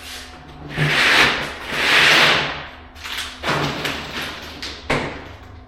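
A roll of flooring underlayment being unrolled and slid across a concrete floor: two long rustling swishes in the first three seconds, then softer rustling with a sharp knock near the end.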